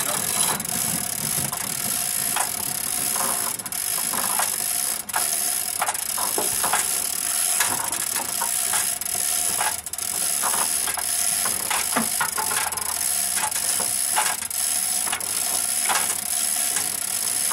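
Manual chain hoist being hand-pulled to lift an engine out of a car: an irregular run of sharp mechanical clicks and chain rattles.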